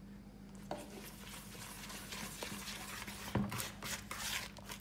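Soft scraping as cookie batter is stirred in a plastic mixing bowl, with a few light knocks of the utensil against the bowl. The scraping grows from about a second in.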